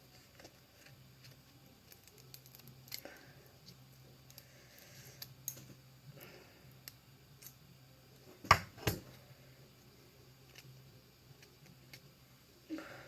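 Quiet handling of paper and tape while taping a paper knife: soft rustling and small ticks, with two sharp clicks about half a second apart a little past the middle.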